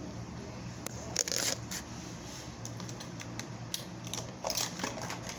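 Small plastic fidget toys being handled, giving scattered sharp clicks and short scratchy rattles, with a louder burst a little over a second in.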